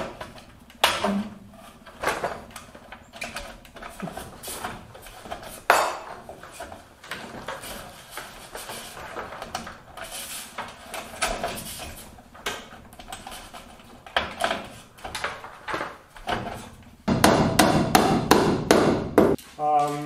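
Sheet-metal wiring cover of a fluorescent strip light fixture being pushed and snapped into place: a run of sharp metal clicks and knocks, with a denser stretch of rattling and scraping near the end.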